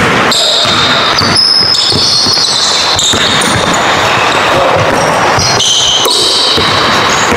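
Basketball bouncing and sneakers squeaking on a hardwood gym floor, with short high squeaks scattered through a steady din of play.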